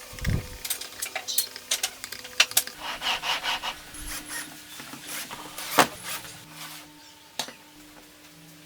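Wooden parts being handled and worked by hand: an irregular run of knocks, clicks and scrapes of wood on wood, with the sharpest knock nearly six seconds in.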